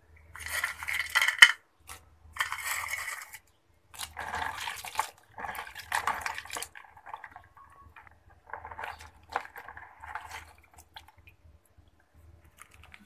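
Water sloshing and splashing in a plastic basin as a hand swishes dried fish around to wash them, in separate bursts of a second or so with short pauses between. A single sharp knock about a second and a half in.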